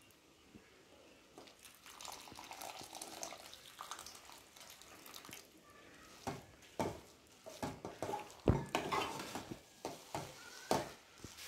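About a tumbler of water poured into a metal kadai of frying soya mince, then a metal ladle stirring it in, scraping and knocking against the pan a number of times.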